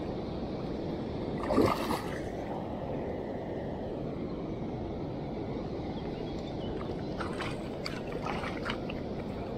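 A hooked pike splashing at the surface of shallow river water about a second and a half in, over a steady rush of water and wind. A few light clicks near the end.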